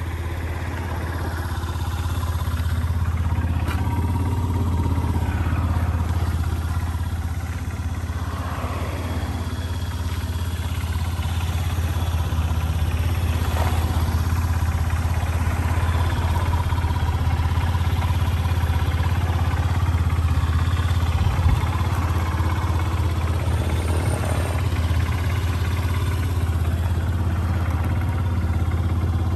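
Honda Gyro Canopy's water-cooled four-stroke single-cylinder engine idling steadily, running evenly: the seller calls the engine in good condition.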